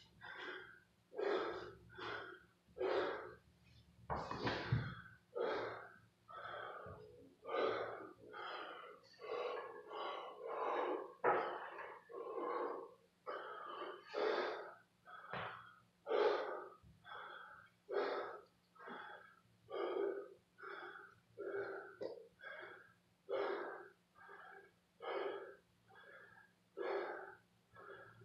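A man breathing hard and fast from exertion during kettlebell swings and pull-ups. He gives a loud puff of breath about every 0.8 seconds, over a steady low hum.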